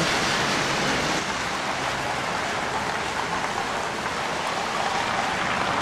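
Steady heavy spring rain pouring down, an even hiss of water falling on the ground and surfaces.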